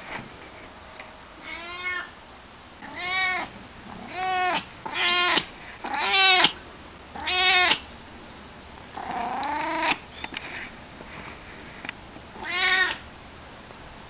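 Siamese cat meowing over and over, eight meows in all, each rising then falling in pitch. The one about nine seconds in is longer and lower than the others.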